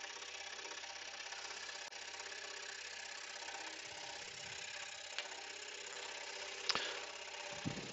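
Axminster scroll saw running and cutting through a small wooden blank: a steady motor hum with a fast, even pulse from the reciprocating blade, and a couple of brief clicks near the middle and the end.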